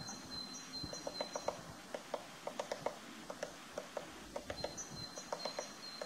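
Eurasian three-toed woodpecker chiselling out its nest hole in a tree trunk: irregular dry taps of bill on wood, coming in short runs of several a second. A high, thin call of repeated short notes from another bird sounds twice, at the start and near the end.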